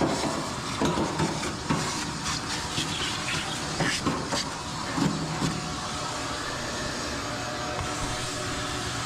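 Knocks and clatter of metal appliance parts being handled inside an opened dryer cabinet, several in the first five seconds, over a steady hiss.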